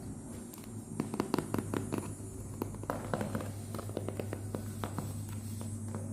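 Hands handling a parcel: a run of irregular taps and clicks that starts about a second in, over a steady low hum.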